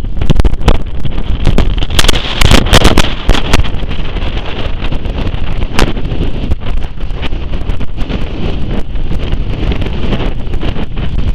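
Hurricane Sandy's storm wind buffeting the microphone in hard gusts, heaviest about two to three and a half seconds in.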